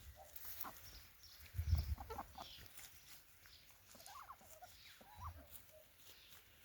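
Free-ranging hens clucking in short, scattered calls. A low rumble on the microphone about two seconds in is the loudest thing, with a smaller one near the end.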